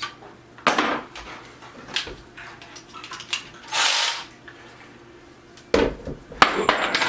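Clicks and knocks of hand tools and driver bits being handled while a screwdriver bit is changed, with a short rattle about four seconds in and a heavier thump followed by sharp clicks near the end.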